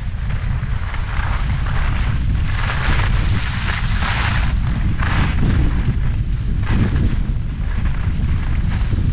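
Wind buffeting the microphone at skiing speed, a steady low rumble, with the hiss and scrape of ski edges carving across packed snow in pulses about once a second, one for each short turn.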